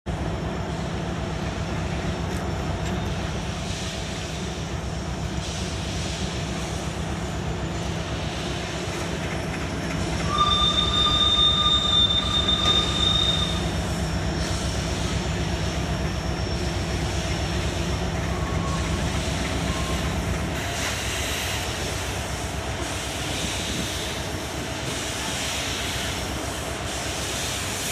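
Train running on the rails with a steady rumble. About ten seconds in, a high steady tone sounds for about three seconds, the loudest part.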